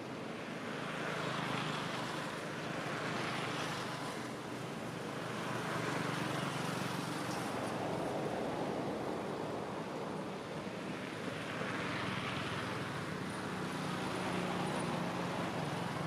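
Steady rushing outdoor background noise that swells and eases every few seconds.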